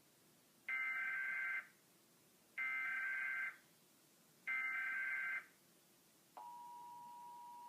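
Emergency Alert System SAME header: three identical bursts of warbling data tones, each about a second long, that encode the alert for station receivers. About six seconds in, the steady two-tone EAS attention signal starts and holds, the alert tone that comes before the spoken test message.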